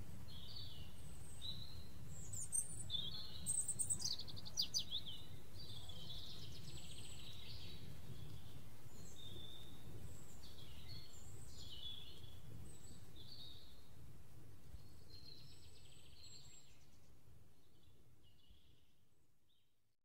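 Forest ambience recording with a steady low rumble, and birds chirping and trilling over it. The calls are busiest and loudest about three to five seconds in. The whole mix fades out gradually over the last several seconds.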